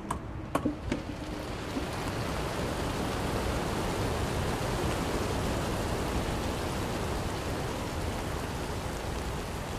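Thousands of racing pigeons taking off together from transport lorries, a dense rushing of massed wingbeats that swells over the first two seconds and then holds. A few sharp knocks in the first second come from the lorries' crate doors being opened for the release.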